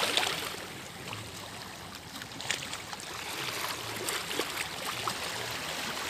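Small waves washing and lapping against the boulders of a rock jetty, loudest about at the start.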